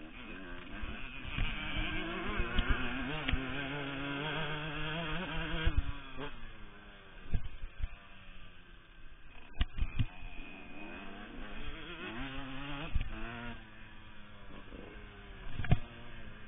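Two-stroke Yamaha YZ125 motocross bike being ridden, its engine note rising in pitch as it revs and climbs through the gears, then dropping back off the throttle, several times over. A few sharp thumps break in, the loudest near the end.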